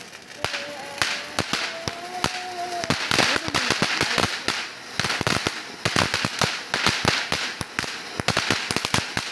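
Diwali firecrackers going off in a rapid, irregular string of sharp pops over a hiss, thickest from about three seconds in.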